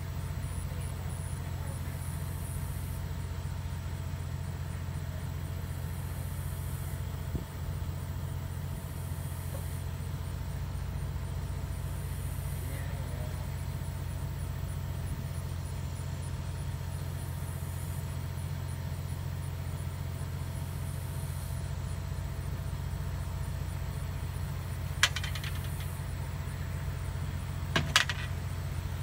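Delivery truck engine idling with a steady low rumble, with a couple of sharp knocks near the end.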